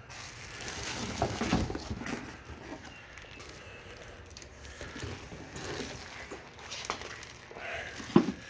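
Plastic packaging rustling and plastic parts being handled while a pressure washer is unboxed: irregular rustles with scattered clicks and knocks, and one sharper knock near the end.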